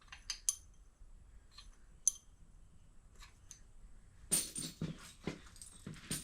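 Scattered light metallic clicks and clinks as engine parts are handled, then a denser burst of clattering and rustling about four seconds in.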